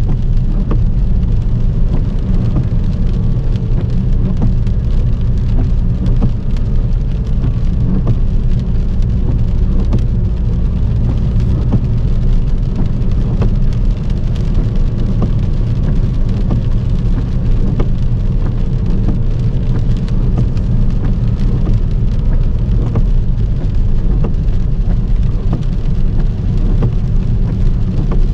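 Heavy rain drumming on a moving car, a dense patter of drops over a steady low rumble of the car on the wet road.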